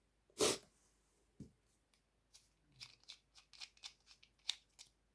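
Parts of a lighting kit being handled during assembly: one short loud rustle about half a second in, a light knock, then a run of small clicks and taps.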